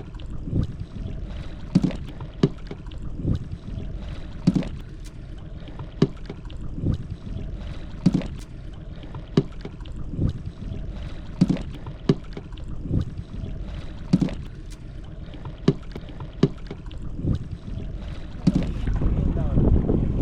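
Sharp thumps about once a second over a steady low rumble on a fishing boat at sea; near the end the low rumble and wind noise grow louder.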